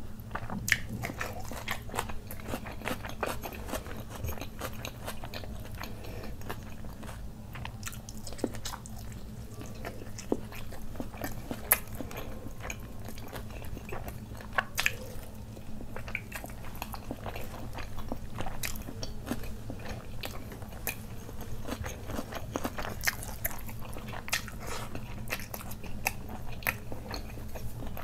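Close-miked chewing of fried chicken and raw onion: irregular crunches and wet mouth clicks over a low steady hum.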